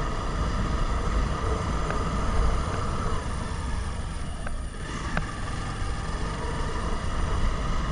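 Motorcycle engine running at low speed under a steady low rumble of riding noise, picked up by a camera in a waterproof cover; the sound dips briefly about halfway through.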